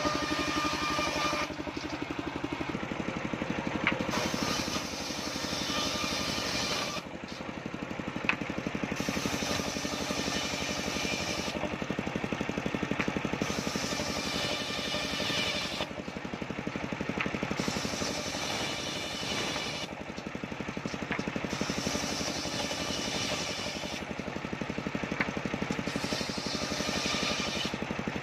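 Homemade circular saw running steadily under a low machine drone, ripping waru wood into battens. The bright cutting sound of the blade comes in stretches of about two seconds, repeating every four to five seconds, one stretch per pass of the timber.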